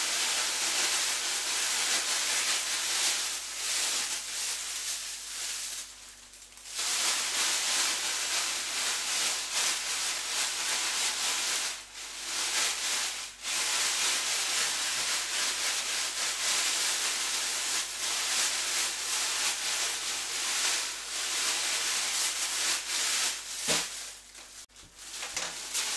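Plastic roasting sleeve crinkling and rustling as it is shaken and kneaded with cut potatoes inside, mixing them with sunflower oil and spices. It stops briefly a few times.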